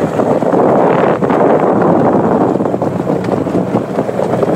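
Wind buffeting the microphone over the running engine and tyres of an open utility vehicle driving along a dirt trail: a loud, steady rush with a few short knocks.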